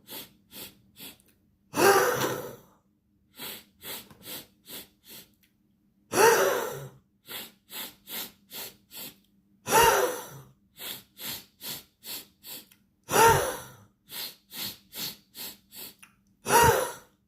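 A man's breathing exercise: five quick, sharp sniffs in through the nose, then one long, forceful exhale through the mouth with the lips drawn in. The cycle runs five times, and the exhales are the loudest sounds.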